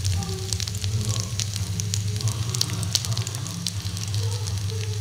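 Minced-mutton seekh kebabs on metal skewers sizzling in oil on a flat iron griddle (tawa), with many small crackles and pops over a low steady hum.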